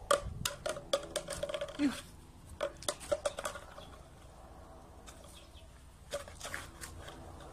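A wooden stick clattering and knocking on brick paving as a puppy plays with it, a quick run of light clicks over the first few seconds and a few more near the end.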